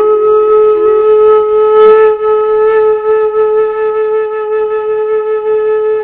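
Theme music in which a flute-like wind instrument steps up to one long, steady note and holds it.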